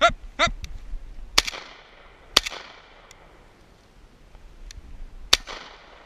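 Three 28-gauge shotgun shots at a flushed quail: two about a second apart, then a third some three seconds later, each sharp crack trailing off in an echo. A short voice-like cry comes just before the first shot.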